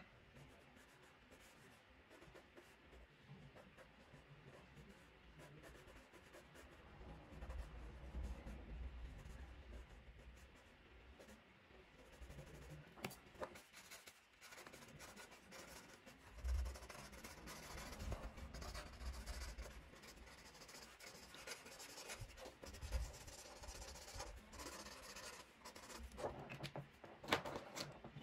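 Faint scratching of a sharp black pencil, then a felt-tip marker, stroking across paper to shade a drawing, with a few light knocks from handling.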